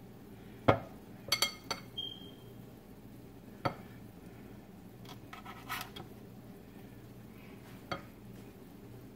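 A spoon clinking and scraping against a glass mixing bowl while scooping filling, a handful of sharp taps spaced a second or two apart over a faint low hum.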